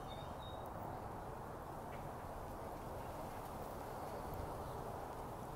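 Steady outdoor background noise with a brief faint high chirp near the start.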